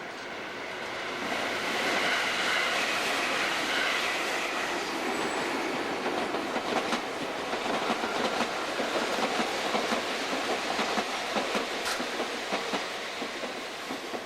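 Meitetsu electric train passing, its wheels clacking over the rail joints. The noise builds over the first two seconds, turns into a fast run of clicks through the middle, and fades near the end.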